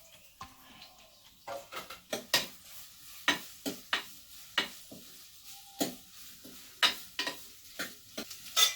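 Sliced onions frying in hot coconut oil in a clay pot while a spoon stirs them, knocking and scraping against the pot about once or twice a second, over a faint sizzle.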